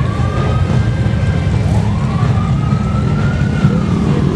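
A parade of motorcycles passing, their engines making a steady low rumble, with a siren wailing over them: one wail tops out about half a second in, and another rises slowly from about a second and a half in, then falls away.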